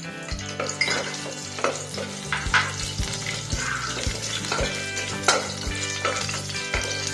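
Bay leaves, cinnamon and cloves sizzling in hot oil in a pressure cooker while a spatula stirs them, with repeated short scrapes and clicks of the spatula against the pot.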